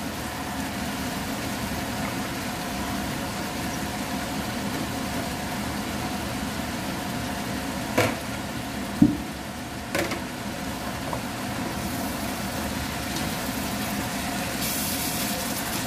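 Steady hum of stir-frying vegetables in a nonstick wok, with three sharp knocks of kitchenware against the wok about eight, nine and ten seconds in, as shredded cabbage is tipped into the pan.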